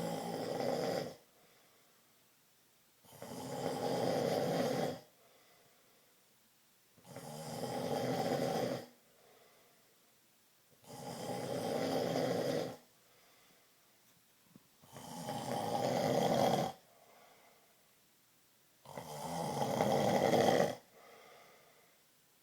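A sleeping man snoring in a steady rhythm: six snores about four seconds apart, each swelling over about two seconds, with faint breaths between.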